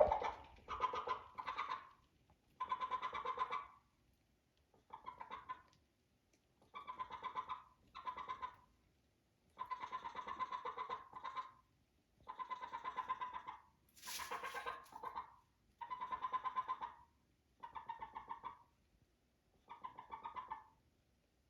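A chicken making odd, repeated calls: about a dozen separate calls with short pauses between them, each one a quick run of pulses lasting about a second.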